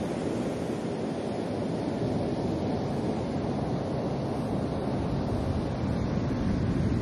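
Steady beach wind and surf noise, a low, even rush that grows slightly louder toward the end.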